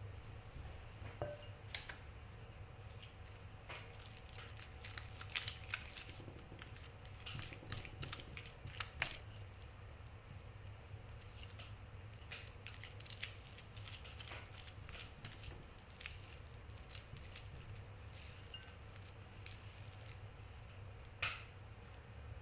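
Silicone spatula working softened butter in a glass mixing bowl: soft squishing with scattered light clicks and scrapes against the glass, and one sharper knock near the end.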